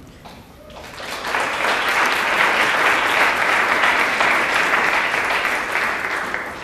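Audience applauding, swelling in about a second in and tapering off near the end.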